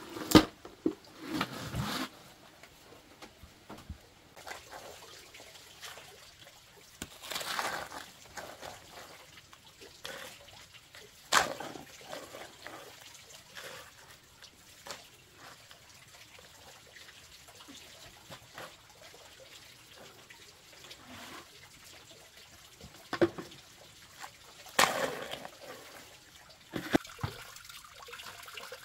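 Wet sand mix being tipped out of a plastic bucket and worked with a hoe: scattered wet slaps, scrapes and thuds, the loudest as the bucket is emptied right at the start.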